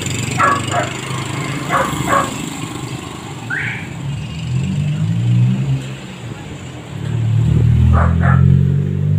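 A dog barking in quick pairs of short barks, three times, with a brief rising yelp in between. A motor vehicle engine passes on the street, its rumble growing and loudest near the end.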